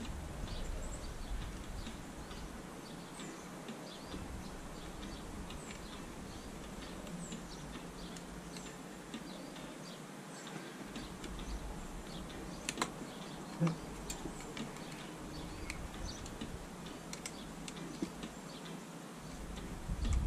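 Faint scattered ticks and clicks of small chainsaw parts and hand tools being handled during reassembly, with a couple of sharper clicks about halfway through.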